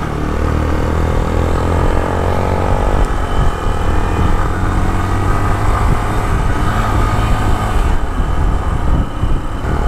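Motorcycle engine running under way as the bike is ridden. Its pitch rises over the first three seconds as it accelerates, then runs on steadily.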